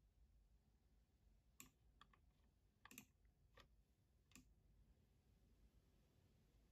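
Near silence broken by a handful of faint, separate clicks, spaced roughly half a second to a second apart, from working a laptop's controls while the Blender viewport is moved around.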